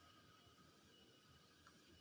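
Near silence: faint room tone with a faint steady hum, and one small tick near the end.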